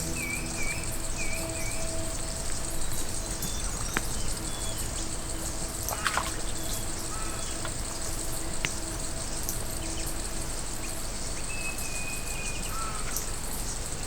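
Bush ambience: a steady high-pitched drone of insects with birds chirping, including a quick run of repeated chirps at the start and a short whistled call near the end.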